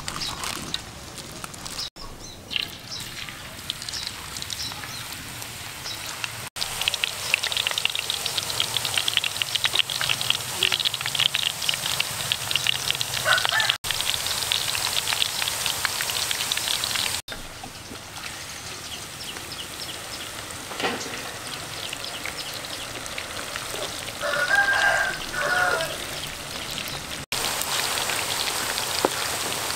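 Banana slices deep-frying in hot oil in a wok, a dense sizzling crackle that a metal slotted spoon stirs through. A chicken calls in the background, briefly about halfway through and again near the end.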